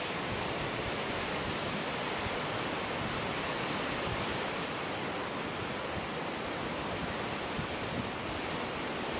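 Strong wind rushing through locust, cherry and tulip trees, a steady, even hiss of leaves and branches with no separate gusts.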